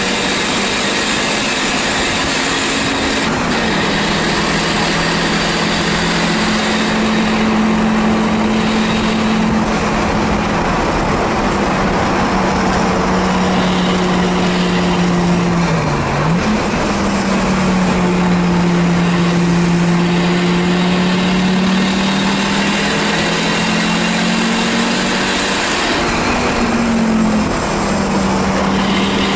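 Engine of a 1984 Audi 4000 race car heard from inside its stripped, caged cabin, running hard on track over road and wind noise. Its pitch drops about three seconds in, dips and comes sharply back up around the middle, and changes again near the end.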